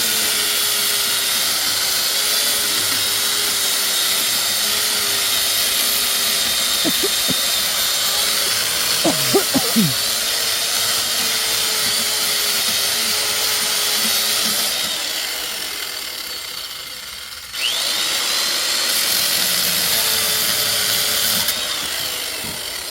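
An electric power tool's motor running steadily with a high whine. Two-thirds of the way in it winds down, then spins up again with a quick rising whine, and it runs down once more near the end.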